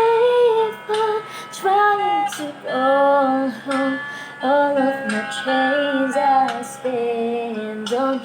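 A woman singing: a run of held notes with short breaks between the phrases.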